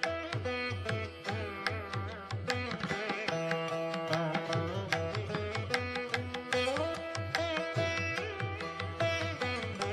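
Instrumental Indian-style background music: a plucked string melody with sustained notes over a repeating drum beat.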